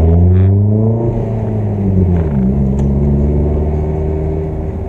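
Car engine heard from inside the cabin while driving: it pulls up in pitch, drops and picks up again at a gear change about two seconds in, then runs steadily.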